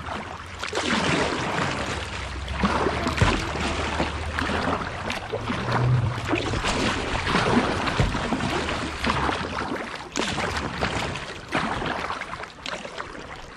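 Double-bladed kayak paddle dipping and splashing into the river on alternating sides in a steady rhythm of strokes, over the rush of moving river water.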